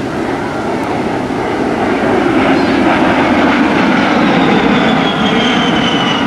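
A-10 Thunderbolt II's twin TF34 turbofan engines: a loud jet rush that builds over the first two seconds, with a high whine that slides slowly down in pitch through the second half as the jet passes overhead.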